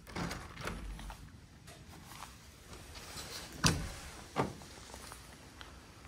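A sliding glass balcony door being opened, with footsteps and two sharp knocks a bit over half-way through, the first the louder.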